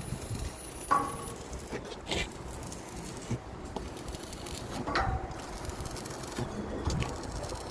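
Scattered knocks and clanks from building work, the one about a second in ringing briefly like struck metal, over a steady background noise.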